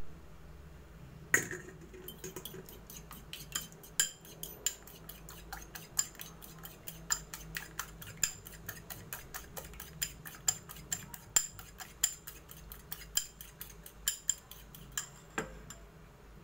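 Metal fork beating a raw egg in a small ceramic bowl: quick, sharp clinks of the tines against the bowl, several a second, with one louder clink about a second and a half in.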